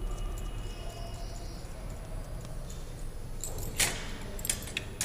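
Quiet handling sounds of hands pressing and shaping a ball of stuffed paratha dough over a low room hum, with one sharp click a little before four seconds in and a few lighter clicks just after it.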